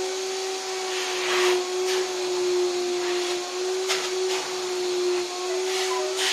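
Vacuum cleaner running steadily with a high motor whine and hiss, its hose and hand nozzle drawn over fabric sofa upholstery, with several brief louder rushes of air as the nozzle moves over the fabric.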